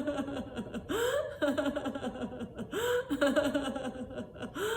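A woman's deliberate laughter-yoga laughing: each burst opens with a sharp gasping in-breath and runs down in a falling string of "ha ha ha" pulses, repeating about every two seconds, three times.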